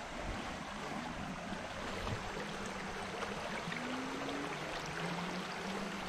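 Steady rushing of a shallow creek flowing over riffles, with a faint low hum underneath.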